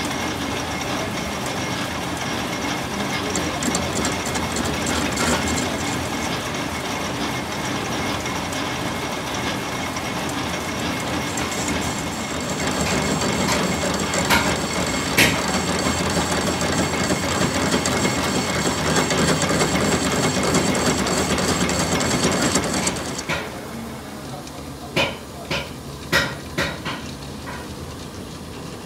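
Manual metal lathe running, its tool cutting a spinning toothed gear blank held in a four-jaw chuck, with a steady high whine joining about halfway through. The machine noise drops off suddenly a few seconds before the end, followed by four or five sharp knocks.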